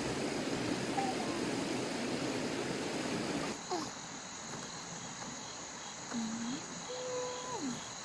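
A steady noisy rumble cuts off suddenly about three and a half seconds in. Insects chirr steadily after it, and a few short pitched calls come near the end.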